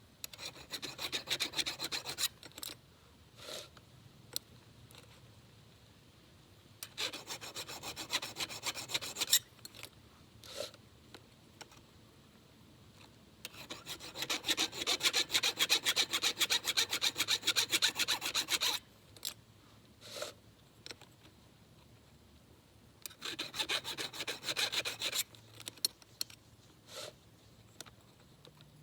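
A hand file rasping on the teeth of a Husqvarna Xcut saw chain, in four runs of quick back-and-forth strokes with pauses between them, and a few single clicks in the gaps. The longest run is in the middle.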